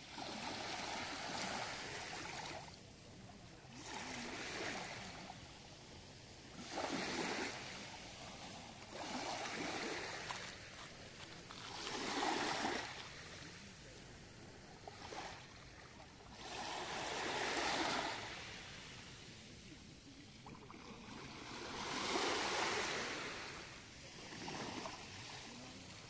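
Small waves lapping onto a pebble beach, each wash swelling into a hiss and falling away again every few seconds.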